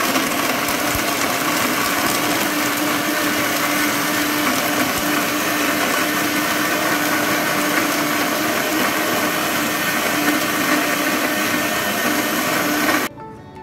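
High-power countertop blender running at full speed, pureeing soaked dates in water into a thick juice: a loud, steady motor sound at a constant pitch that cuts off suddenly near the end.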